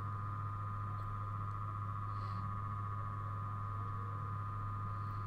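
Steady background hum with a steady higher-pitched whine over it, unchanging throughout: the electrical noise of the recording setup, with no other sounds.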